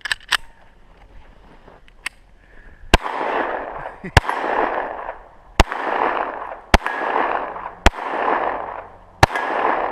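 A string of gunshots at steel targets: a few fainter shots in the first two seconds, then six loud shots about a second or so apart from about three seconds in, each followed by a long echo carrying the ring of a hit steel plate.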